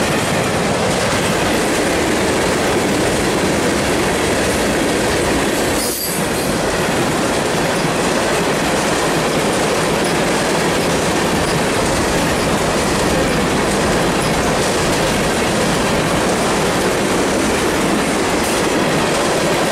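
Freight train's tank cars and covered hoppers rolling past at speed: steady, loud noise of steel wheels running on the rails, with a brief dip about six seconds in.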